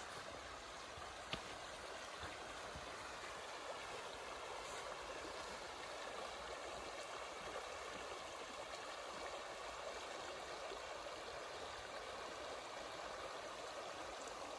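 Shallow river running over a stony riffle: a steady rush of water.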